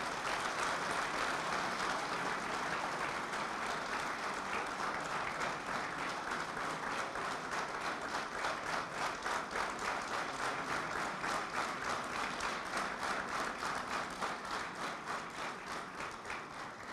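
Audience applauding steadily, the claps falling into an even rhythm in the second half, then fading out at the end.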